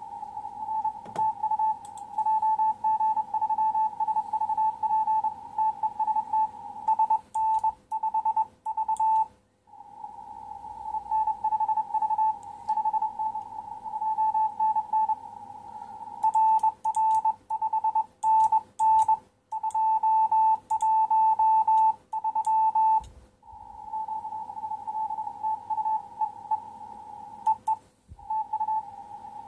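Morse code (CW) beeps of a single tone just under 1 kHz from an amateur radio transceiver on the 10-metre band, keyed on and off in quick dot-and-dash groups as a contest exchange with a distant station goes back and forth. Louder passages alternate with quieter stretches over a faint background hiss.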